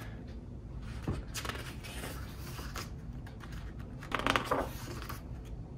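Pages of a large photobook turned by hand: stiff paper sliding and rustling, the loudest rustle about four seconds in.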